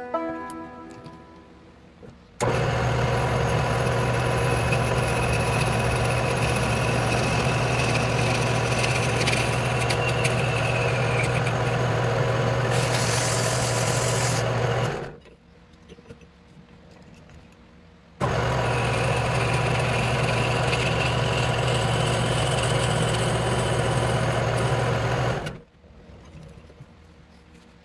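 Metal lathe motor running steadily with a strong low hum while turning a wooden handle, with a brief harsher hiss shortly before it stops. It comes on again after a few seconds' pause and runs for about seven seconds more.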